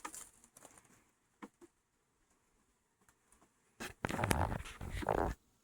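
Handling noise from working bee comb into a hive frame: a few faint clicks, then a stretch of rustling and crackling near the end.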